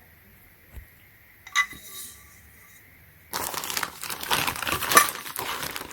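A small click about a second and a half in, then from about three seconds in, plastic packaging crinkling continuously as it is handled.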